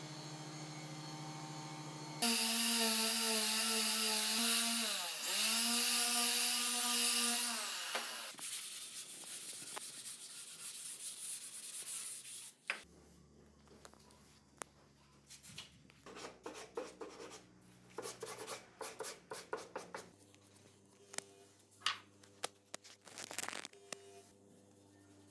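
An electric power tool working wood. Its motor hums steadily, then runs much louder from about two seconds in, with the pitch dipping once as it meets load, and dies away over several seconds. It is followed by scattered scraping, tapping and clicking of handwork on wood.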